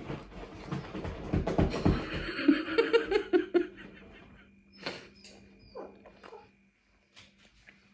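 A dog in a burst of wild play: thumps and scuffling, then a quick run of short whines about two and a half seconds in.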